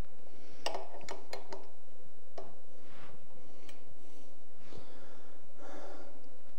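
A handful of light metallic clicks about a second in as a pedal spindle is worked by hand into the crank arm of a Magicycle Ocelot Pro e-bike, followed by soft handling noise and breathing.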